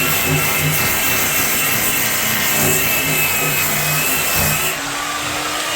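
Variable-speed power sander running against a fiberglass tub insert, grinding off the old coating with a steady whine and a gritty hiss. Near the end the sanding hiss drops away as the sander comes off the surface.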